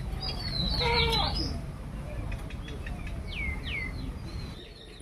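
Birds calling: a burst of chirping calls about a second in, then two quick whistled calls that each slide downward, over a low steady background rumble that drops away near the end.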